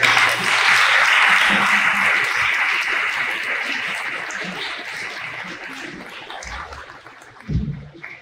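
Audience applauding, loudest at the start and dying away gradually over several seconds, with a short thump near the end.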